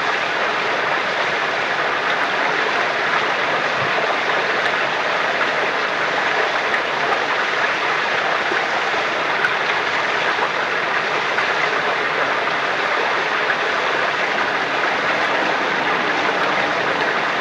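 Water flowing steadily from a spring at a holy well: an even wash of noise with no breaks.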